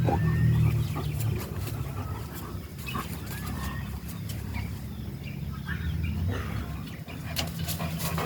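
Guinea fowl and other farmyard birds calling: a scatter of harsh, sharp cries and short rising chirps, over a low steady rumble that is loudest in the first second.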